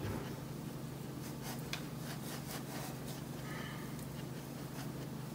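Dog nosing through treat packages inside a cardboard box, making faint soft rustles and clicks over a steady low hum.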